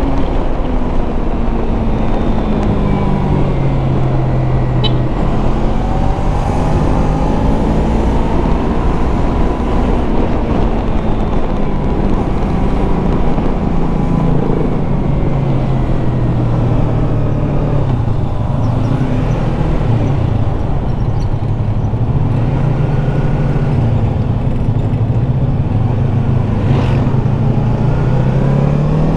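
Yamaha MT-25's 250 cc parallel-twin engine running while riding, its pitch falling and rising again and again as the throttle is rolled off and opened through the bends.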